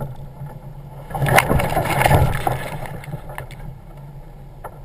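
Jeep Wrangler TJ engine running steadily, with a loud crash about a second in, lasting about a second and a half, as the Jeep tips over onto its side into brush. The engine keeps running after the rollover because the keys fell out of the ignition and it can't be shut off.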